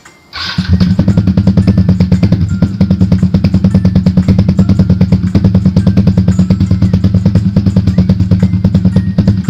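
Yamaha LC135's single-cylinder four-stroke engine starts about half a second in and idles steadily through a short-can Exzos AHM M1 exhaust, with a fast, even exhaust pulse. The owner expects it to sound off because the NSR 28 mm carburettor's air setting has not been tuned yet.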